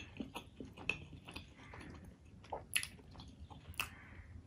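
A person chewing a mouthful of paratha and curry close to the microphone: irregular wet mouth clicks and chewing sounds, with a sharper click a little past halfway.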